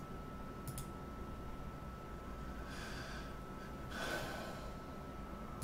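A person's breathing close to a microphone, two soft breaths about three and four seconds in, with a single mouse click about a second in and a faint steady high tone underneath.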